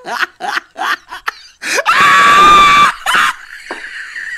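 A person laughing in short rapid bursts, then letting out a loud, high shriek held for about a second, followed by another short burst of voice.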